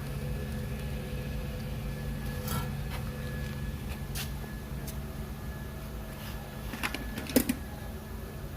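A few light clicks and taps from hands working the plastic retaining clips of a car's exterior door handle, the sharpest pair near the end, over a steady low hum.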